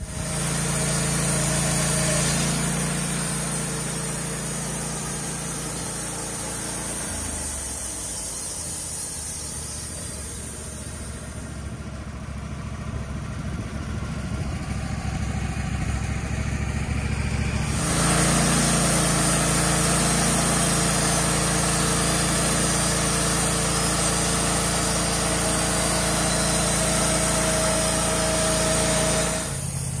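Portable band sawmill's gas engine running steadily. It eases off about a quarter of the way through and comes back louder just past halfway.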